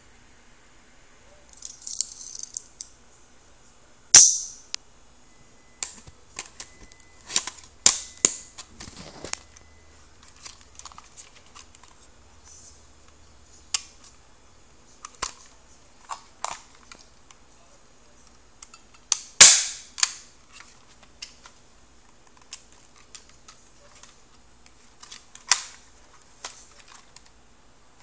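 Handguns, a Desert Eagle and a small Beretta-style pistol, giving off scattered sharp clicks and snaps of their mechanisms. Two much louder sharp cracks come about four seconds in and again about nineteen seconds in.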